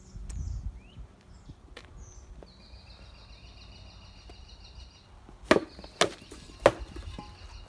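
Three hard strikes of a sword on a pell made of hanging rubber tyres, coming close together near the end. A bird trills faintly in the background before them.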